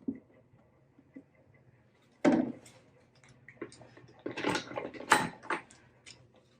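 Handling noise on a workbench: a sharp knock at the start, a louder knock about two seconds in, then a run of clicks and clatters of tools or parts being moved and set down.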